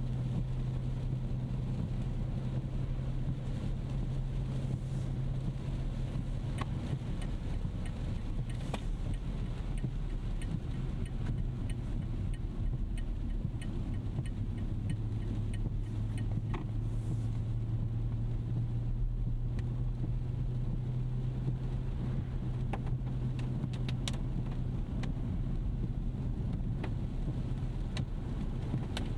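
Steady cabin noise of a 2025 Rolls-Royce Ghost Series II (6.75-litre twin-turbo V12) being driven on a wet road: a low drone of engine and tyres that sags slightly in pitch partway through and recovers. A run of faint regular ticks, about two a second, comes in a few seconds in and fades out before halfway.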